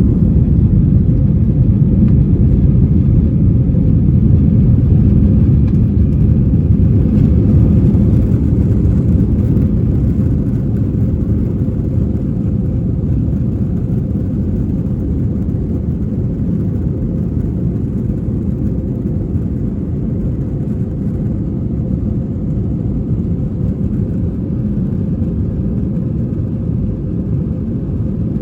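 Steady low rumble inside an Airbus A321-200's cabin, from its engines and the airflow past the fuselage. It eases a little about a third of the way in.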